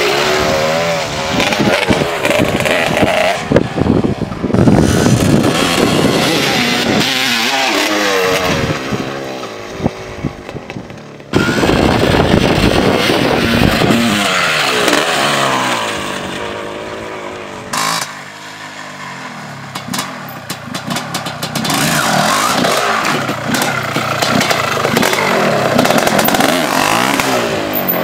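Honda CR250 single-cylinder two-stroke motocross engine revving hard under riding, its pitch repeatedly climbing and dropping with throttle and gear changes. The sound jumps abruptly a couple of times where one run gives way to another.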